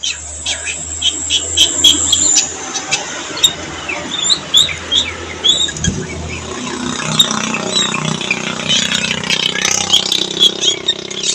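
Javan myna (jalak kebo) singing a varied string of short chirps and whistles, with a long high whistle in the first two seconds.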